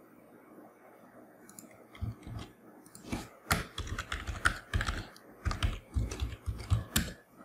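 Typing on a computer keyboard: after about two quiet seconds, a run of irregular keystrokes lasting about five seconds.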